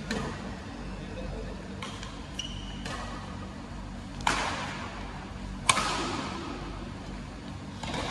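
Badminton rackets hitting a shuttlecock back and forth in a doubles rally: sharp cracks every second or two, the two loudest about four and five and a half seconds in, each echoing briefly in a large hall. A short high squeak comes about two and a half seconds in.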